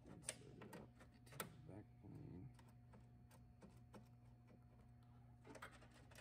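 Very faint: light scattered clicks and ticks of a screwdriver and a small bolt being handled, over a steady low hum.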